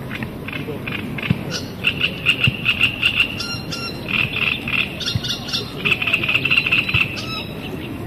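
Frogs calling: bouts of rapid pulsed croaking, one starting about two seconds in, another just past the middle and a third near the end.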